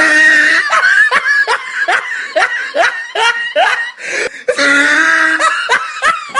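A person laughing hard in a rapid run of short bursts, with a longer drawn-out sound about two-thirds of the way through before the laughing starts again.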